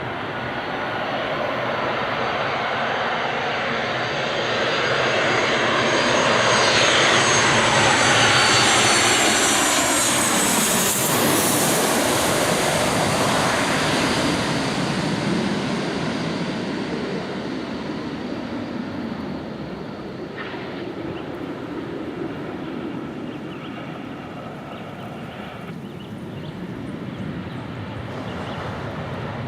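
Airplane engines passing by. The sound builds to a peak about eight to eleven seconds in, with a high whine that drops in pitch as the plane goes past, then fades slowly.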